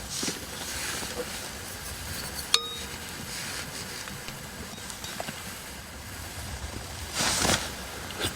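A single sharp clink of hard tableware, ringing briefly, about two and a half seconds in, over a low steady background. A short rustling burst comes near the end.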